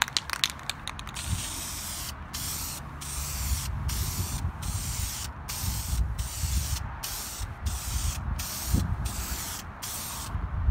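Krylon aerosol spray-paint can hissing in short repeated pulses, about one every three-quarters of a second, as light coats are striped onto the plastic body. A few sharp clicks come near the start.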